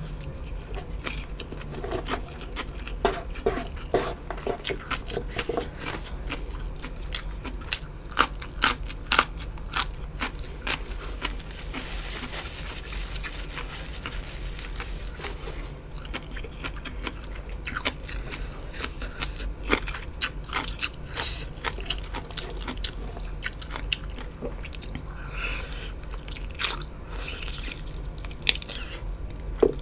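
Close-miked crunching and chewing of food: a run of crisp bites and mouth sounds, densest and loudest about a third of the way in.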